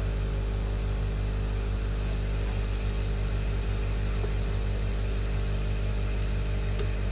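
Steady whir and hum of a hot air rework station blowing while desoldering an IC from a phone's board, with a low electrical buzz under it and a couple of faint ticks.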